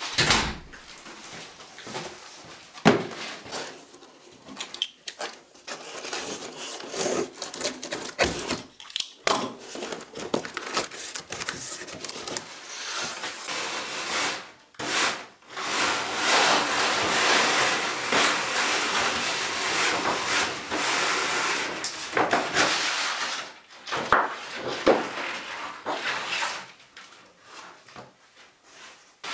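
Thin sheets of wood veneer being slid out of a flat wooden case and handled on a wooden workbench: long papery rubbing and rustling as the sheets slide over each other. A few sharp wooden knocks come between, the loudest about three seconds in.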